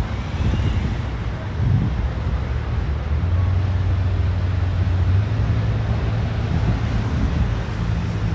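Steady low rumble of city street traffic, with a deeper steady engine hum coming in about three seconds in.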